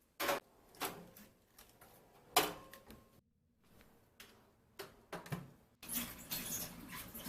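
Household handling sounds: a string of sharp knocks and clicks, like things being set down and doors or drawers being moved, broken by a moment of dead silence, then a busier patch of clatter and rustling near the end.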